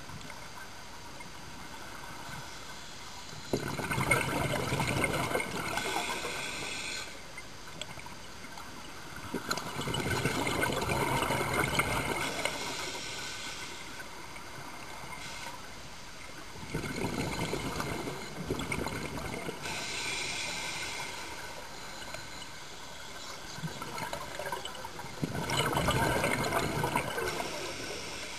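Scuba diver breathing through a regulator underwater: exhaled bubbles rush out in four bursts of about three seconds each, roughly every six to seven seconds, with quieter stretches between.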